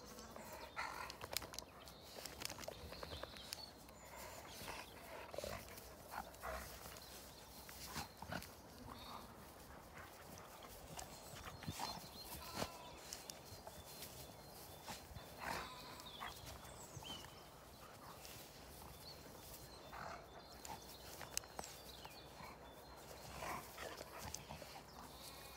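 Two big dogs play-fighting, heard faintly: scattered short growls and huffs, and their paws thudding and rustling through long grass.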